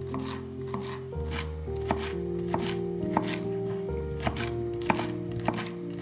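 Chef's knife chopping vegetables on a wooden cutting board: a steady series of sharp knocks, about two a second, over soft background music of held notes.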